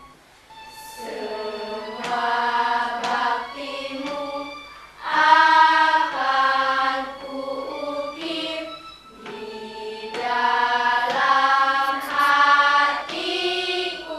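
A choir singing a song in sustained phrases, with short breaks between the phrases.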